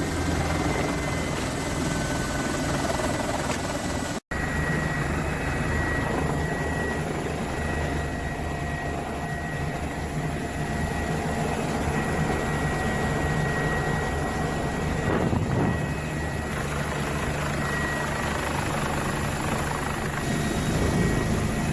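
Helicopter running steadily: a low rotor drone with a thin high whine above it. The sound drops out for an instant about four seconds in.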